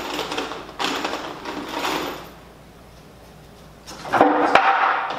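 Power drill driving screws into the wooden chair frame in two bursts, the second, about four seconds in, louder with a steady motor whine.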